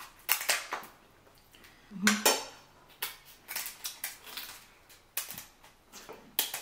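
Close-miked eating sounds from a seafood boil: chewing and the clatter and crackle of shellfish shells and utensils, in a string of short bursts, loudest about two seconds in.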